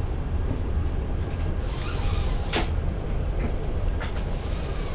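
Steady low rumble of air and machinery inside an Airbus A380 cabin, with a sharp click about halfway through and a fainter one near the end.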